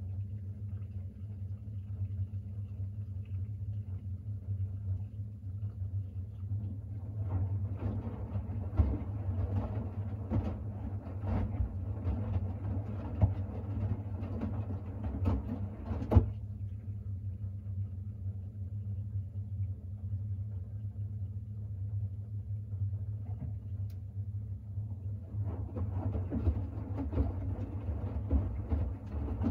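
Siemens iQ700 WM16XGH1GB front-loading washing machine in the main wash of its Shirts cycle: a steady low hum under the wet load tumbling in the drum in two bouts, one from about seven to sixteen seconds in, ending with a single sharp knock, and another starting near the end. The turning and resting drum is the gentle wash rhythm of the Shirts cycle.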